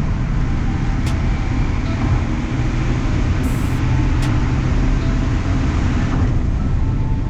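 1994 Mitsubishi 3000GT VR4 driving at a steady pace: a constant low engine and road rumble, with a few faint clicks.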